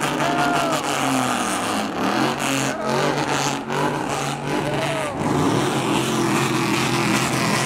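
Loud truck engine running and revving, its pitch climbing about five seconds in.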